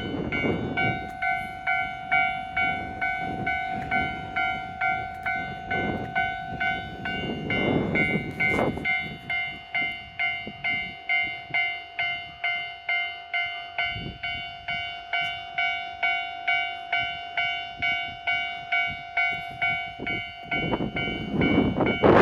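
Level-crossing warning bell ringing in even pulses at about two a second, with a few brief rushes of noise in between. Just before the end a 683 series electric train starts to rush past, louder than the bell.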